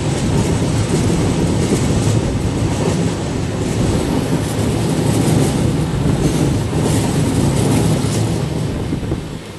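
Train running at speed, heard from inside a coach at an open window: a steady, loud rumble and rattle of wheels on rails, easing slightly near the end.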